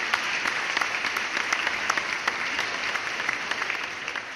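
Applause: many hands clapping in a dense, even patter, fading out near the end.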